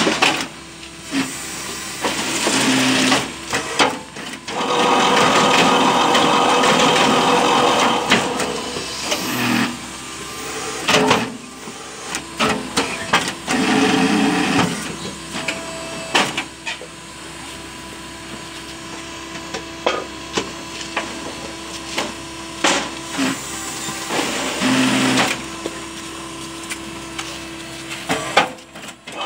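Automatic fly ash brick making machine running: a steady hydraulic hum, with louder noisy stretches lasting a few seconds and repeated metallic knocks and clanks as blocks are pressed and pushed out.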